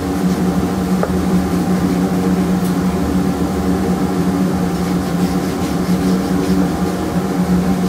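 Steady drone of a running workshop machine, one low pitch with several overtones, over hand sanding of plywood edges with sandpaper on a block.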